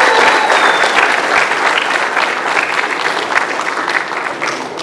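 Audience applauding in a hall, the clapping slowly thinning and growing quieter until it dies away at the end.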